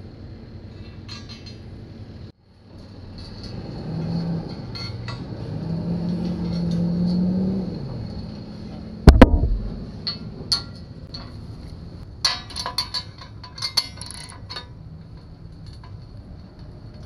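Hand work on a steel channel with bolts and a ratchet wrench: a single loud metal bang about nine seconds in, then scattered clinks of tools and bolts against the steel. Earlier, a low hum swells and then fades with a falling pitch.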